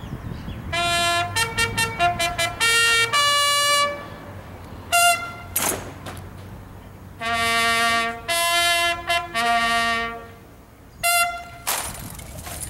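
Military bugle call played on a trumpet: a quick run of short notes, a pause, then a phrase of longer held notes and a short closing figure.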